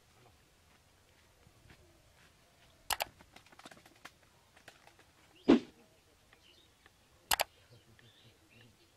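A few sharp clicks and one louder thump over a quiet background: a double click about three seconds in, the thump about halfway, and another double click near the end.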